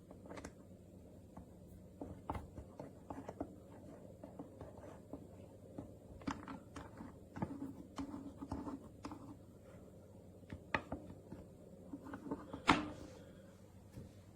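Scattered light clicks and knocks of a camera super clamp and magic arm being handled and adjusted, with one sharper, louder click near the end.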